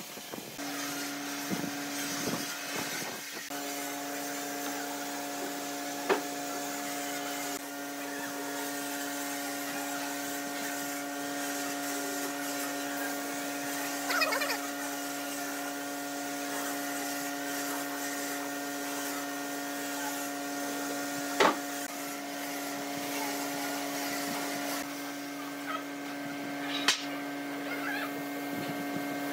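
Gravity-feed air spray gun hissing as it sprays finish onto pine wood, over a steady machine hum, with a few sharp clicks.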